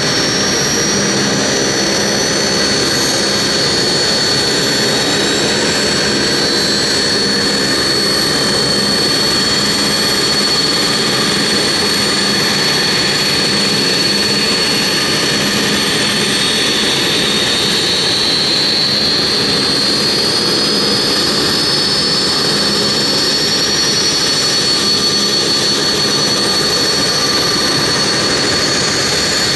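Avro RJ100's Lycoming LF507 turbofans running on the ground with a steady, high whine. About halfway through, a second whine starts climbing slowly in pitch as another engine spools up.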